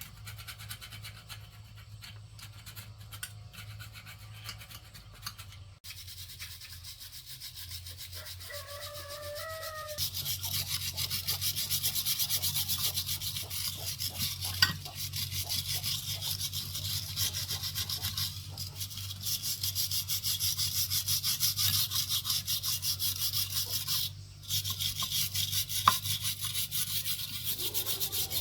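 A rusty banana slicer is rubbed down by hand with fast, even back-and-forth scraping strokes. The strokes are lighter at first, then much heavier from about ten seconds in, with a short pause near the end.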